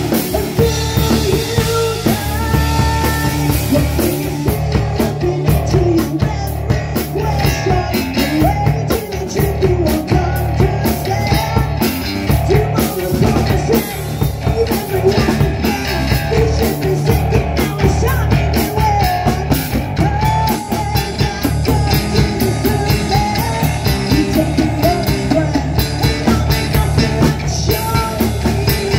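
Live rock band playing: a woman singing lead through a microphone over electric bass guitar and a drum kit.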